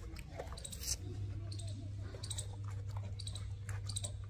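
A person chewing a mouthful of raw sugarcane, with irregular crunchy clicks as the fibrous stalk is bitten and ground.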